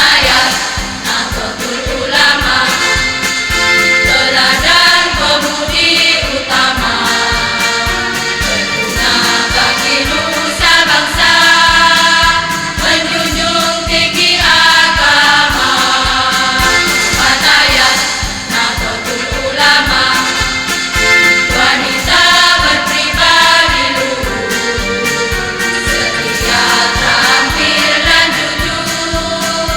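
A women's choir singing a song.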